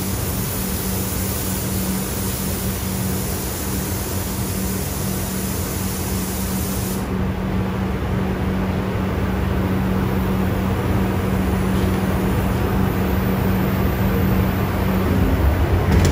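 Spray gun hissing as clear coat is sprayed onto the fender, cutting off about seven seconds in. A steady spray-booth fan roar with a low hum runs underneath throughout.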